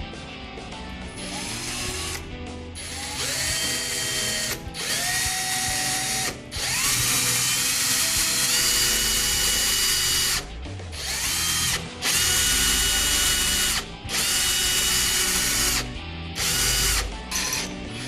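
Cordless drill driver turning a 32 mm hole saw into a door, run in about eight bursts of one to four seconds. Each burst opens with a rising whine as the motor spins up, then holds steady while the saw cuts.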